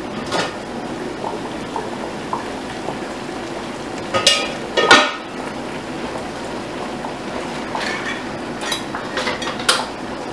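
Steady bubbling hiss of a water-bath canner at the boil, with two loud ringing clanks about four and five seconds in and lighter clinks near the end as the enamel canner's lid and pots are handled.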